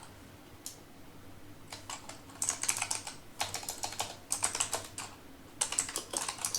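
Typing on a computer keyboard: a single keystroke, then several quick runs of key clicks with short pauses between them, as a terminal command is entered.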